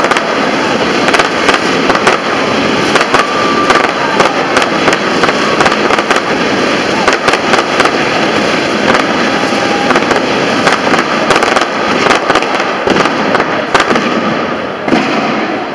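Aerial fireworks display going off: a rapid, continuous run of bangs and crackles, several sharp reports a second, easing slightly near the end.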